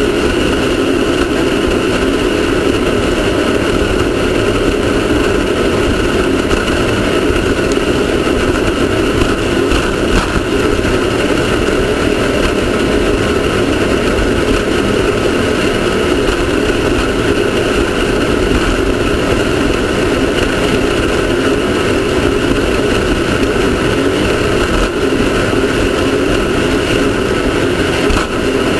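Off-road race car's engine running steadily and loudly under a constant dense noise, with no clear revs, stops or changes.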